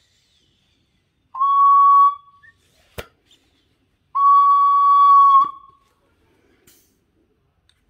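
Ford 6.0 Powerstroke coolant reservoir cap's pressure-relief valve whistling as it blows off air from a hand-pumped cooling-system pressure tester: two steady high whistles of about a second each, with a sharp click between them. The valve opens at only about 14 psi instead of its 16 psi rating, a sign that the cap is weak and should be replaced.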